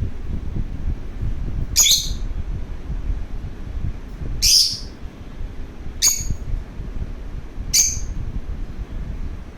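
Lovebird giving four short, sharp, high chirps about two seconds apart, over a steady low rumble.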